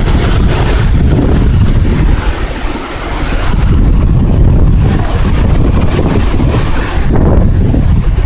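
Storm wind gusting against the microphone, a loud, continuous rushing rumble with a high hiss over it. It eases briefly about three seconds in, then picks up again.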